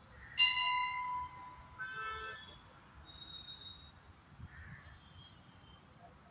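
Two vehicle horn honks. The first and louder starts sharply about half a second in and lasts under a second; a shorter one follows about two seconds in.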